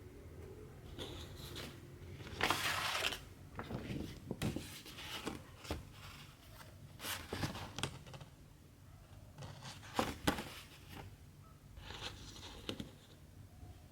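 Cross-stitching: cotton embroidery thread drawn through 14-count fabric in a series of irregular rasping swishes, with short sharp ticks between them.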